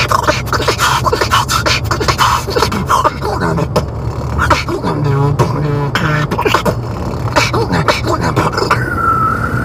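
Beatboxing: fast mouth percussion of clicks and snares, with a short hummed melodic line midway and a single held high note near the end, over the car's low running hum.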